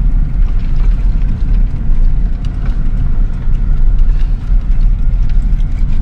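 A car driving over a rough, stony dirt road, heard from inside: a loud low rumble with frequent small knocks and rattles.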